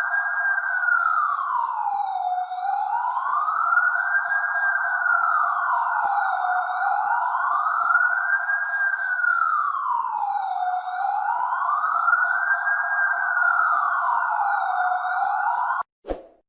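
Police siren sounding a slow wail, its pitch rising and falling about once every four seconds. It cuts off suddenly near the end, followed by a short thump.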